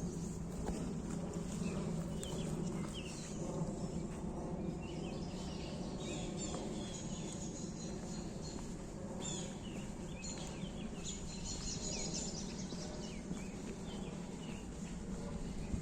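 Woodland birds chirping and singing, with many short high calls and a rapid trill a little past the middle, over a steady low rush of background noise.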